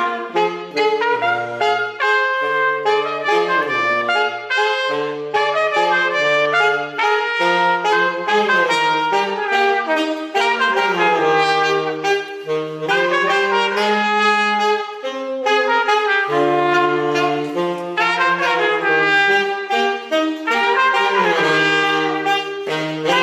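A small wind band of brass and saxophone plays a tune in the Isthmus banda style, the melody carried above a bass line that steps between notes.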